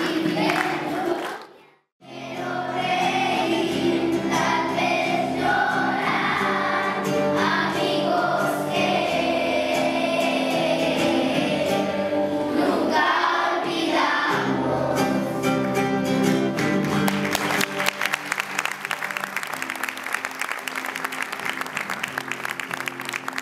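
Children's choir singing to acoustic guitar accompaniment, with a brief drop-out about two seconds in. From about two-thirds through, applause builds up over the end of the song.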